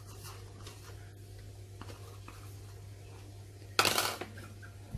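Quiet handling noises of ingredients being laid into a cooking pot, with one short, loud rustling clatter about four seconds in, over a steady low hum.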